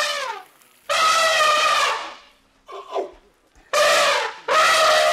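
Asian elephant trumpeting: several loud calls, each lasting about a second, with short gaps between them. The last call runs on past the end.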